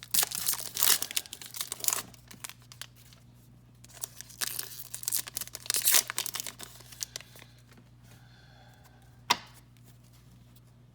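Wrapper of an Upper Deck hockey card pack being torn open and crinkled, in two bouts, with a single sharp tap near the end.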